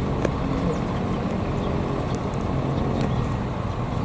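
Diesel-electric locomotive engine running with a steady low drone as the train approaches.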